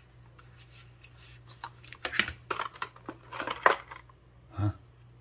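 Packaging being handled during an unboxing: a run of crinkly rustles and sharp clicks about two to four seconds in, then a dull thump near the end.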